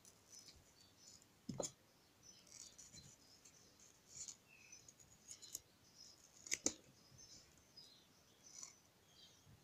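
Faint scratching of a small carving knife cutting and scooping into watermelon rind and flesh, with two sharper clicks, one about a second and a half in and a louder one about two-thirds through.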